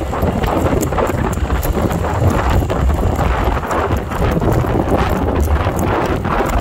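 Wind rushing over the microphone on a moving motor scooter: a loud, steady, rough noise, deepest at the low end, with no engine note standing out.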